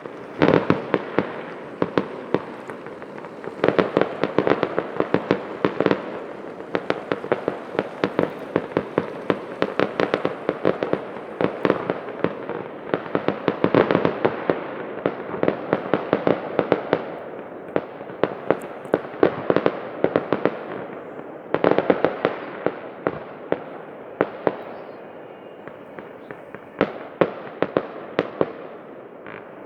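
Fireworks display going off: a near-continuous run of sharp bangs and crackling bursts, many close together, coming in louder clusters every few seconds.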